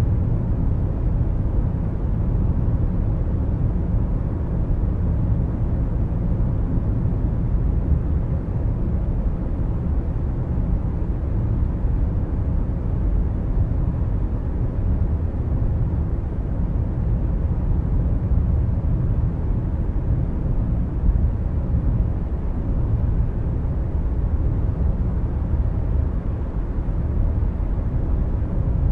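Steady low rumble of a moving car's tyre, engine and wind noise, heard from inside the car through the dashcam's microphone.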